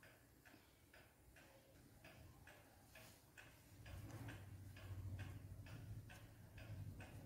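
Faint, regular ticking, about two ticks a second, with a low hum coming up about halfway through.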